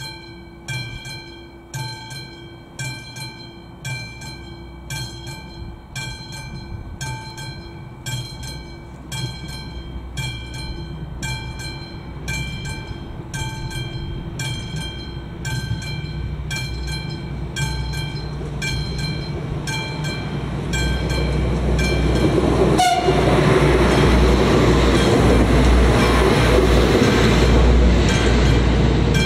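Level-crossing warning bell on AŽD 71 signals striking steadily, about one and a half strokes a second, while a ČD class 844 RegioShark diesel railcar approaches and grows loud, passing over the crossing in the last third.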